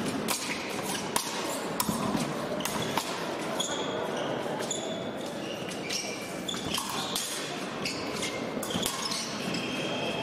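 Épée fencers' footwork on the piste: repeated sharp stamps and taps with short high squeaks, over the steady murmur of a large hall.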